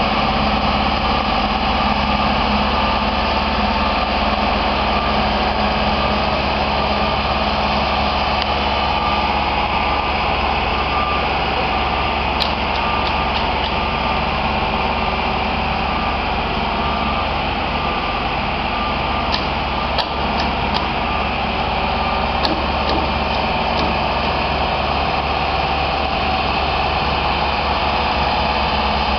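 Genie telescopic boom lift's engine running steadily while the boom is operated, with a faint rapid beeping through the middle stretch.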